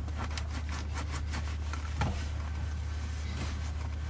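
Microfiber towel rubbing and wiping a leather shift boot, a run of soft scuffs with a light knock about two seconds in, over a steady low hum.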